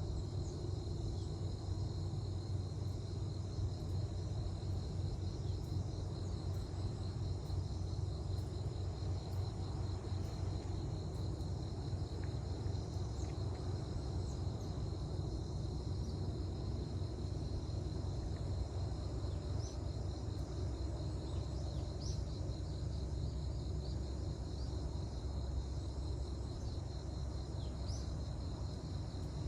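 Steady chorus of crickets or other insects trilling, over a continuous low rumble.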